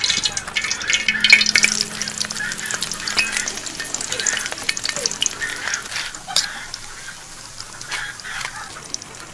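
Battered pieces deep-frying in hot oil in a metal wok: a dense, crackling sizzle full of small pops, busiest in the first few seconds and then settling to a lighter crackle.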